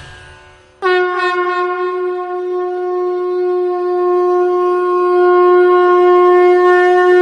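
Conch shell (shankh) blown in one long, steady note that starts about a second in.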